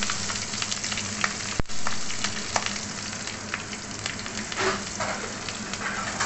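Nigella seeds and green chillies sizzling in hot oil in a steel kadai, with the metal spatula clicking and scraping against the pan as they are stirred. A steady low hum runs underneath.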